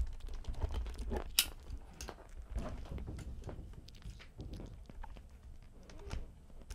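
A kitten about a month old crunching and chewing dry cat kibble with water just added, a run of irregular small crunches and clicks, loudest about a second and a half in.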